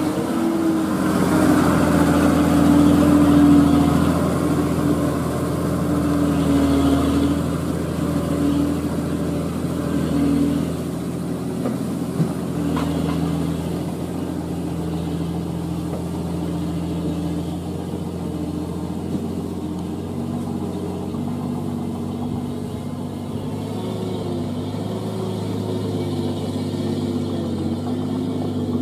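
Loaded diesel dump truck's engine pulling away along a dirt road, a steady low drone with its pitch shifting a little. It is loudest in the first few seconds, then carries on evenly as the truck moves off.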